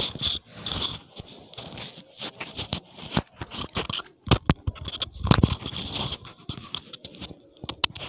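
Close handling noise: shirt fabric rustling and scraping against the microphone, with irregular clicks and a few louder knocks around the middle.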